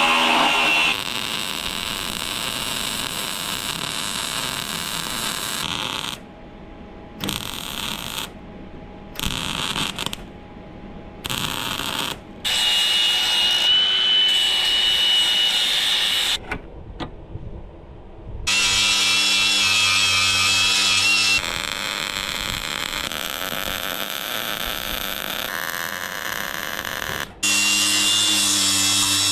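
Milwaukee cordless angle grinder cutting and grinding a steel strip, in several spliced stretches. It runs steadily with a high whine, and for a few seconds in the middle it starts and stops in short bursts.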